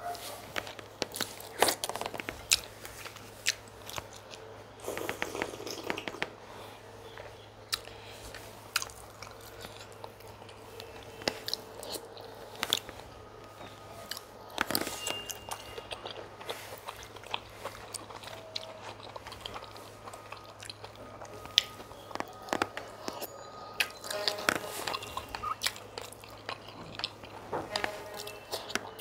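Close-miked eating of chicken pepper soup and fufu: steady chewing and biting with frequent sharp, irregular clicks and crunches.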